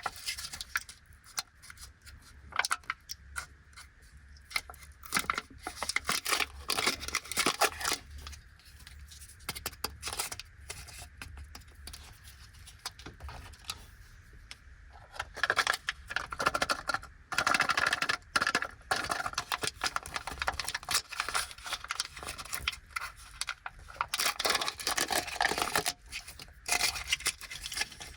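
Plastic packaging of an Anpanman Toys Egg candy-and-toy being opened and handled by hand: crinkling, rustling and tearing in irregular bursts, busier and louder in the second half.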